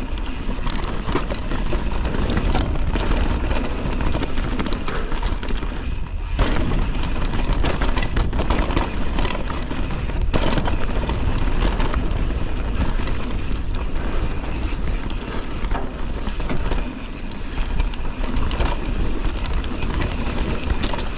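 Full-suspension Canyon Torque mountain bike descending a downhill trail: continuous wind buffeting and tyre noise on dirt, with knocks and rattles from the bike over bumps, the sharpest about six and ten seconds in.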